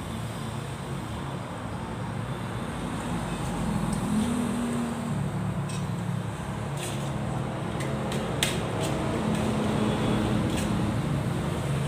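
Steady low hum of a running motor throughout, with a few sharp clicks of eating utensils against a dish around the middle.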